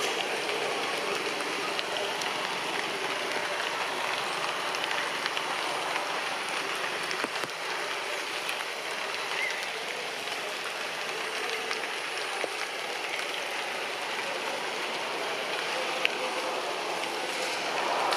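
Steady rain falling on the tree's leaves, an even patter with a few single drop taps standing out.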